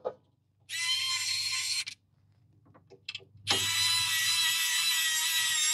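Fantik E1 electric precision screwdriver running as it drives the feeder's mounting screws: a short burst of about a second, a few small clicks, then a longer steady run that is still going at the end.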